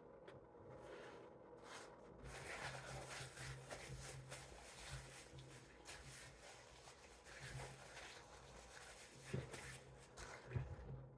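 Faint rustling and small clicks of someone handling fast-food wrappers and eating.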